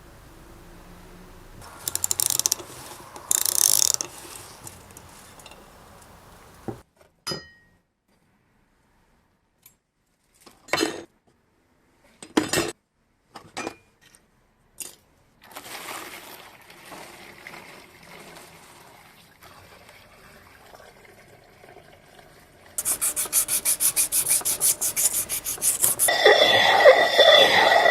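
Hand work on metal motorcycle parts: scrubbing and rubbing, scattered taps and clicks, then a fast, even scraping of about ten strokes a second. Music comes in near the end.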